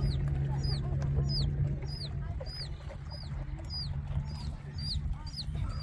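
A bird chirping over and over, a steady run of short high chirps about two or three a second, over a low steady rumble.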